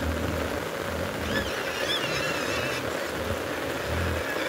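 Steady rain hiss, with a few short, high, wavering squeals from piglets about a second in.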